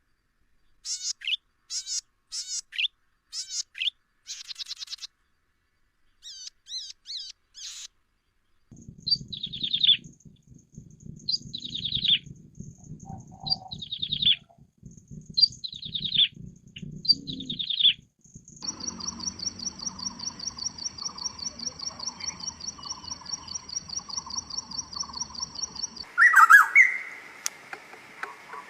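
Songbirds singing in a run of separate clips: first short chirps, then a series of falling whistled notes repeated about every second and a half, then a long, fast, even trill, and loud chattering calls near the end.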